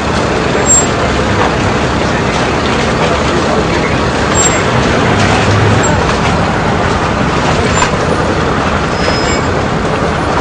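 Busy street ambience: the chatter of a dense crowd over a steady rumble of traffic.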